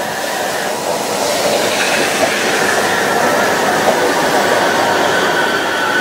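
JR Central 313-series two-car electric train rolling along the platform as it pulls in and slows: a steady rumble of wheels on rail with a high whine running through it.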